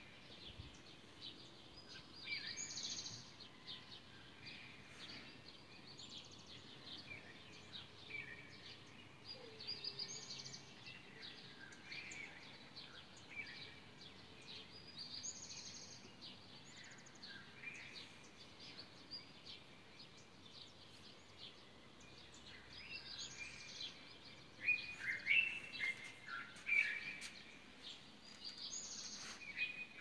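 Songbirds singing at dawn: one bird repeats a short chirping phrase every three or four seconds, and louder chirps come in near the end.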